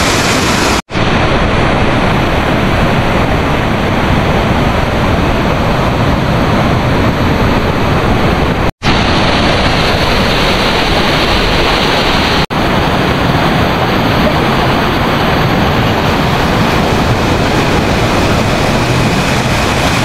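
Steady, loud rush of water falling in a waterfall, with three very brief dropouts: about a second in, near the middle and about two-thirds through.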